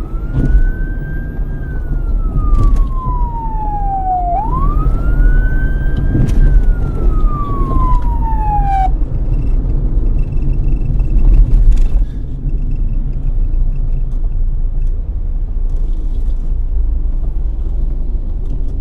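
Police siren in its slow wail: it rises and falls in pitch twice, then cuts off suddenly about nine seconds in. A heavy low rumble, like vehicle engine and road noise, runs under it and carries on after the siren stops.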